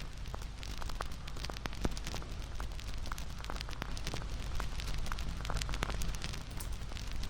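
Campfire crackling: irregular sharp pops and snaps of burning wood over a steady hiss and low rumble of the flames.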